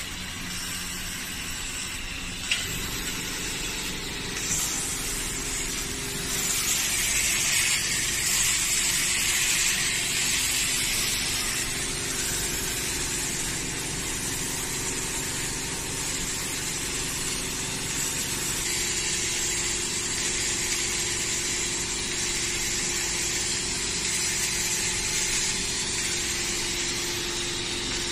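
Automatic laser welding machine at work on a battery pack: a steady machine hum under a hiss, the hiss swelling for a few seconds about six seconds in, with a single sharp click about two and a half seconds in.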